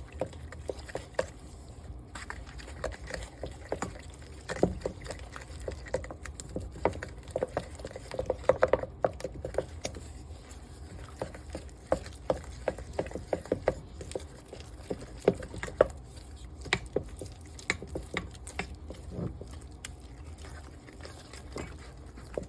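A utensil stirring a wet cornstarch and flour batter in a bowl, with many irregular clicks and taps against the bowl's side.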